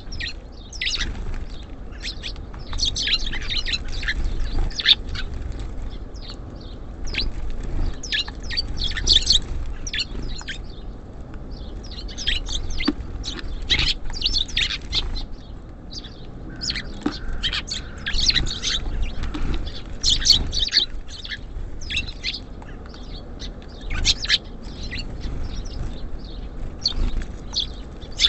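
Small songbirds at a feeder chirping and calling busily, many short high chirps in quick, overlapping runs over a low background rumble.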